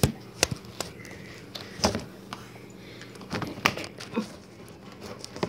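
Scattered knocks and clicks, about seven in a few seconds, from a phone being handled and moved about in a kitchen.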